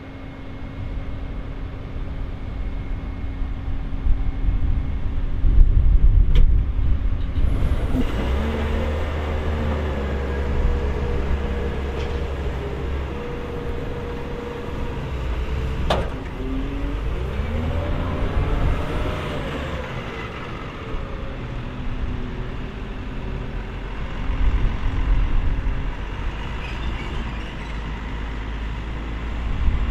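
New Holland W170D wheel loader's diesel engine working under load as it lifts a large bucket of straw, revving up and down. About two-thirds of the way through, its pitch rises and falls in sweeps, and there is one sharp click a little before that.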